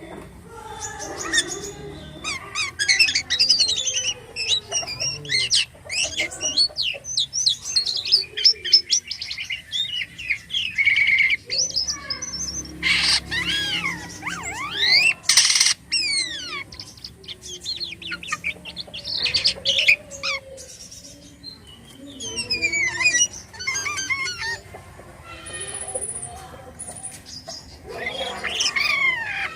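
Jalak kapas starling singing vigorously: a long, varied run of sweeping whistles, chirps and rapid trills, filled with mimicked phrases, with a brief lull past the middle.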